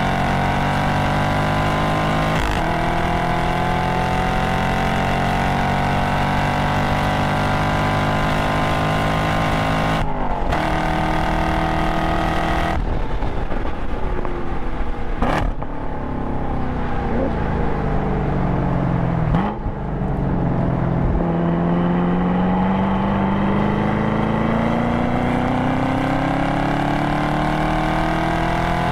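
Chevrolet Camaro SS's 6.2-litre LT1 V8, heard from inside the cabin, pulling hard at full throttle. It upshifts through the manual gearbox about ten and thirteen seconds in, then falls in pitch as the driver brakes and downshifts around twenty seconds. After that it rises steadily again under acceleration.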